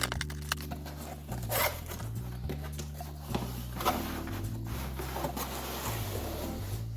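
Background music with a steady bass line, over rustling and scraping as a package is handled and opened, with a sharper scrape about a second and a half in and again near four seconds.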